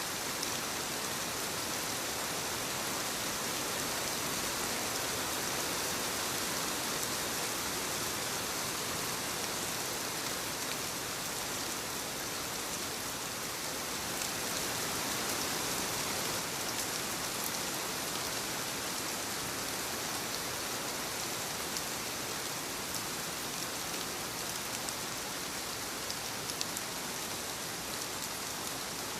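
Steady rainfall, an even hiss of rain with scattered faint drop ticks.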